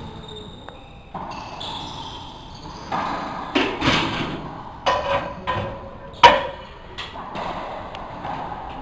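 Racquetball rally in an enclosed court: the ball cracking off racquets and walls with a ringing echo, a quick string of hits from about three seconds in, the loudest about six seconds in. Shoes squeak on the hardwood floor between shots.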